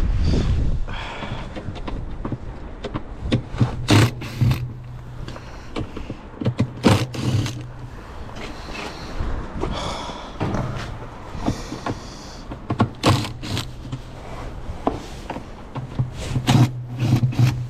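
Parts of a Toshiba top-loading washing machine being handled during disassembly: scattered knocks, clicks and scrapes of plastic and metal. Three times, a short low hum runs for a second or two.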